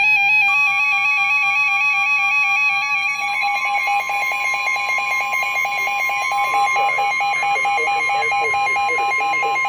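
Emergency alert tones: a steady electronic warning tone starts about half a second in and holds, over a fast-alternating two-pitch electronic beeping.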